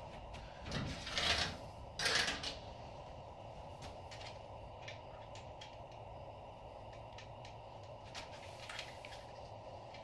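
Rear wheel and axle hardware of a motorcycle being fitted by hand: two short scraping slides about one and two seconds in, then scattered light metallic clicks.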